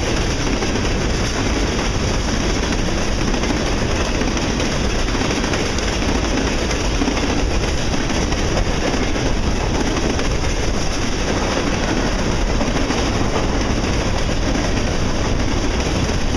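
Empty sand cars of a freight train rolling past: a steady rumble of steel wheels on rail.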